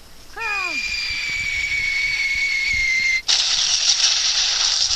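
A short falling cry, then a steady high whistling tone held for about three seconds and drifting slightly lower. It gives way to a loud hiss of noise that cuts off abruptly.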